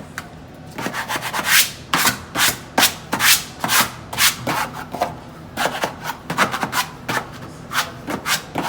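Brisk scraping strokes of a hand tool across wallpaper on the wall, about two a second, starting about a second in with a short pause midway.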